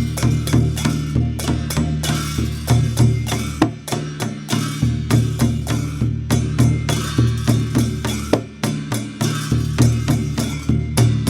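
Dhime, the Newar double-headed barrel drum, played in a quick, steady rhythm of deep booming strokes and sharper strikes.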